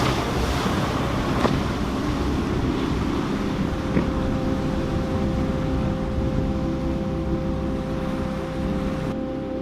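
Boat engines running through rough inlet water, with the rush of waves and wind buffeting the microphone and a couple of sharp knocks. A steady droning hum comes in about halfway through.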